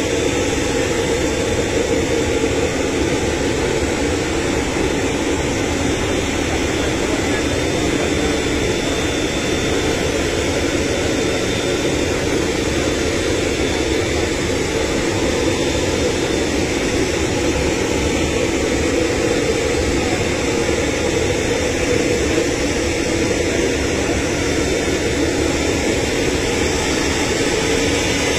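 Steady aircraft turbine noise close to a parked business jet: an even rush of air with a faint high whine that does not change.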